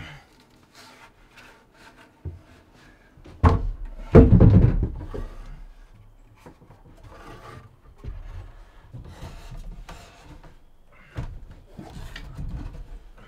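Heavy wooden logs being handled on top of a log wall: a sharp knock and then a heavy wooden thud about four seconds in as a log is set down, followed by quieter scraping and knocking of wood on wood as it is shifted into place.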